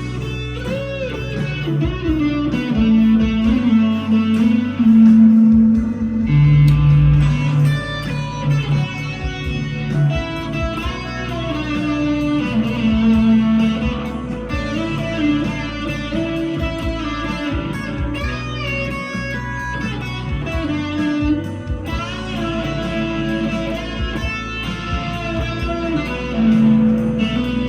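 PRS SE 245 electric guitar played through overdrive: a lead line in B minor with sustained notes and string bends.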